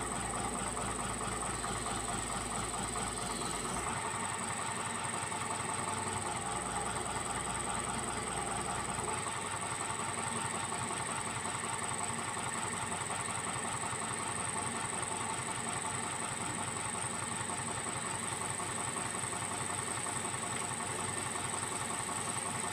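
Hitachi hydraulic excavator's diesel engine running steadily at idle, with a hiss and a constant thin high whine over it.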